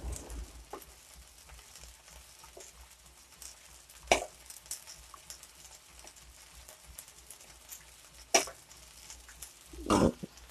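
Metal spoon stirring sambar in a small steel pot, knocking sharply against the pot twice and clattering once more near the end. A dosa sizzles faintly on the hot griddle underneath.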